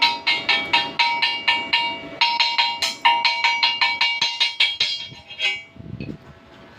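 Rapid metal hammer strikes on a welded steel pipe, each ringing like a bell, about four a second, typical of chipping slag off a stick weld. The strikes pause briefly about two seconds in and stop about five and a half seconds in.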